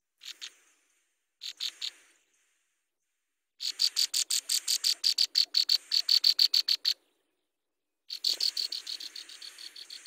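Nestlings begging in the nest: rapid, high-pitched cheeping in bursts, about six calls a second. There are two short bursts at first, a longer run of about three seconds in the middle, and another run starting near the end.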